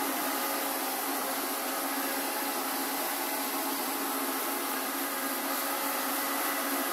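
Alfawise X5 robot vacuum cleaner running in automatic cleaning mode. Its suction fan gives a steady whirring hiss with a faint hum, at an even level throughout.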